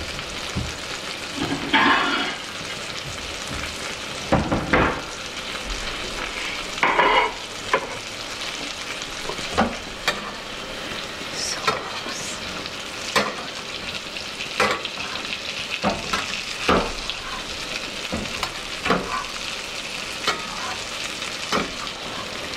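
White fish fillet sizzling steadily in hot butter in a skillet while a spoon bastes it, the spoon clinking and knocking against the pan about once a second, with a few louder clatters in the first several seconds.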